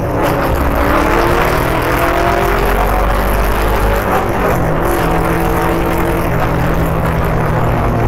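Motorcycle engine heard from on the bike while riding, its pitch climbing over the first four seconds, then changing about four and a half seconds in and holding steady, with wind rushing over the microphone.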